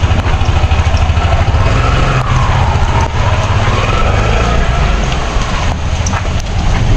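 A motor vehicle's engine running with a steady low rumble as it drives, and a faint wavering tone in the middle.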